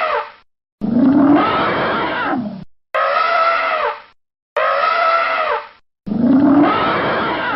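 A string of elephant trumpet calls, about four in a row with the start of a fifth near the end, each one to two seconds long with a pitch that rises and then drops away. The calls alternate between a higher, brassier blast and a lower one that starts rising, and each is cut off by a sudden short gap of dead silence.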